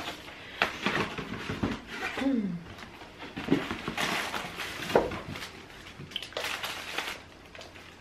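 Tissue paper and packaging rustling and crinkling in short bursts as a parcel is unpacked by hand. A brief falling voice-like sound comes about two seconds in.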